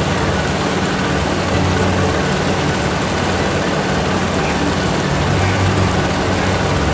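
Meatballs in a thick sweet-sour chilli sauce sizzling and bubbling in a steel wok on the stove, a steady crackling hiss over a low hum.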